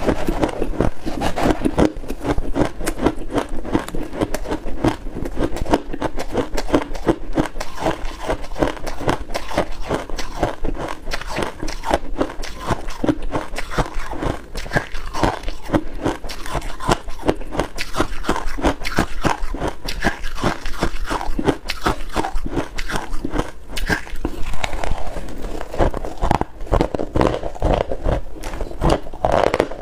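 Close-up crunching of a mouthful of freezer frost being chewed, a dense run of crisp crunches, mixed with a metal spoon scraping and scooping frost in a pot.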